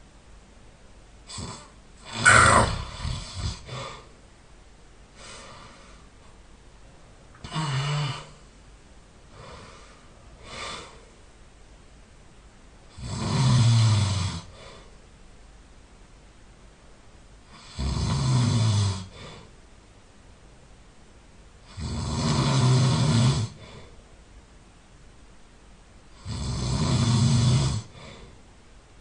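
A sleeping person snoring loudly. The snores are short and irregular at first, the loudest about two seconds in. They then settle into four long snores, each about a second and a half, coming every four to five seconds.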